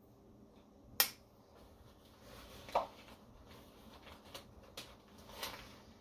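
Pocketknife blade snapping shut about a second in with a sharp click, followed by a softer knock and a few faint clicks as the knife is handled.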